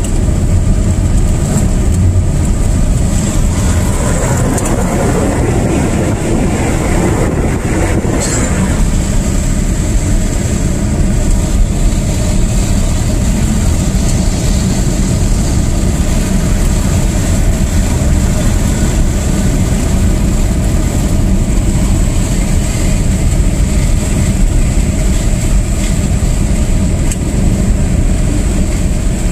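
Vehicle driving on a gravel road, heard inside the cabin: a steady low rumble of engine and tyres on gravel. About four seconds in a louder rushing noise swells and cuts off sharply near nine seconds, which fits the oncoming vehicle passing.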